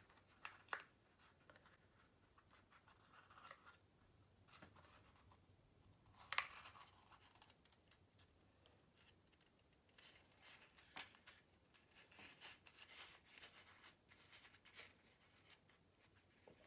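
Faint rustling and crinkling of folded designer paper being pressed and stuck together with double-sided tape, with scattered small clicks and one sharper click about six seconds in.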